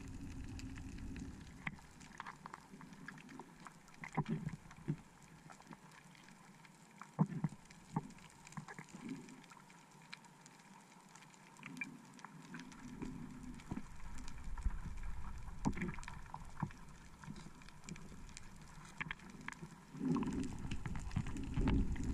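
Muffled underwater sound through a waterproof camera housing: a low water rumble with scattered sharp clicks and knocks, and a louder rush of water in the last couple of seconds.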